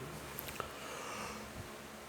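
A sleeping man's noisy breath through the nose, a snort-like breath lasting about a second, just after a couple of faint clicks.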